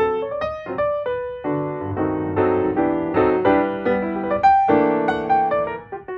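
Background piano music, single notes and chords played at a gentle pace.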